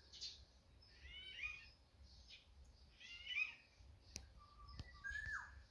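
Garden birdsong: sparrows chirping in short bursts throughout, and a single falling whistled call near the end, typical of a black-naped oriole. Two faint sharp clicks about four seconds in.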